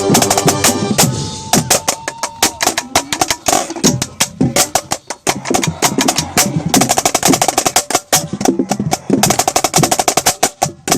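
Marching snare drum played right at the microphone: rapid, sharp strokes and rolls, with dense runs of strokes about two-thirds of the way through, over the rest of the drum corps playing underneath.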